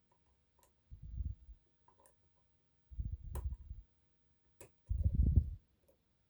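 Lock picking on an Adamant spinning-key pin lock: a few sharp, scattered clicks of the pick and tension tool on the lock, among short dull bumps and rubs of handling, the loudest about five seconds in.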